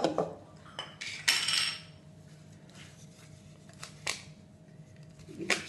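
A spatula knocking and scraping against a kadhai while sticky sesame-sugar chikki mixture is scooped out: a few sharp knocks near the start, a short scrape about a second and a half in, then a couple of single taps.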